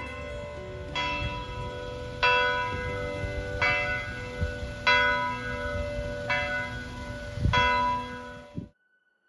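Church bells ringing, with a new stroke about every second and a quarter, six strokes in all, each ringing on into the next. The ringing cuts off suddenly near the end.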